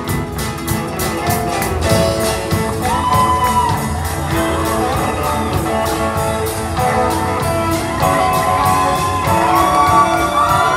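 A live band playing music with a steady beat and held, sliding melody notes.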